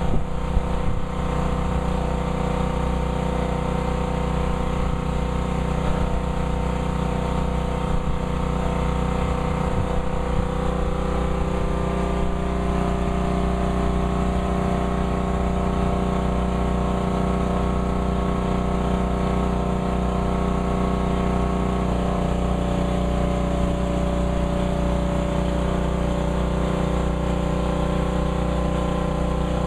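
An engine running steadily at a constant speed, a low hum that holds its pitch throughout.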